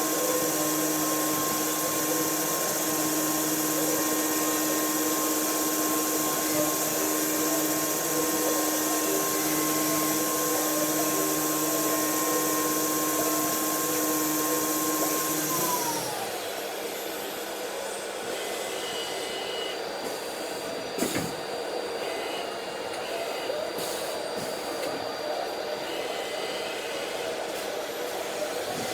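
A high-speed electric machine motor runs with a steady whine, then is switched off about sixteen seconds in and spins down. A quieter steady noise carries on after it, with one sharp click about twenty-one seconds in.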